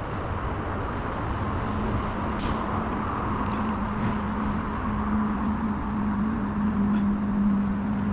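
A steady engine or motor hum over a constant outdoor noise, swelling for a few seconds near the end, with one brief faint click.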